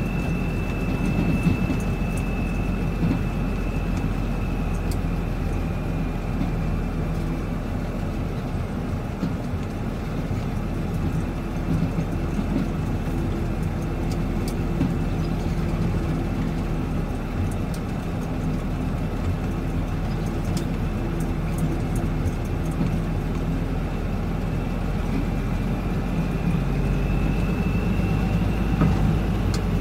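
Diesel engine of a Mack heavy truck running at low speed, heard from inside the cab as the truck rolls along a gravel road. A faint high whine fades out in the first few seconds and comes back near the end, with a few light clicks and rattles.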